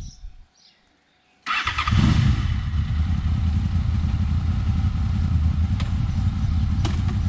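Honda VFR800 VTEC V4 motorcycle engine cutting in abruptly about a second and a half in, then running steadily.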